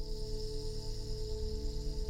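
Singing bowls ringing in long sustained tones over a steady drone from the Aalto software synthesizer, the level pulsing slightly.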